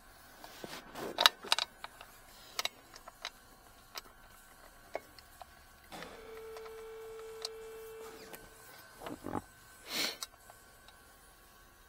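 Clicks and knocks of plastic wiring connectors and harness being handled at a car's airbag control module. About halfway through, a steady electric whine runs for about two and a half seconds.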